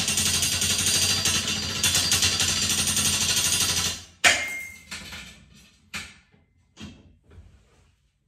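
Hand-crank winch of a homemade sawmill's cable lift rattling and clicking rapidly as it is cranked to raise the saw carriage. It stops suddenly about four seconds in, followed by one loud metal clank and a few fainter knocks that die away.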